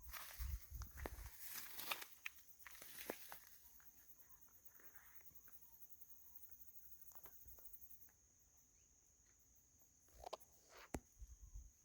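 Faint rustling, crunching steps through vegetation in the first few seconds and again about ten seconds in, over a steady high-pitched insect drone.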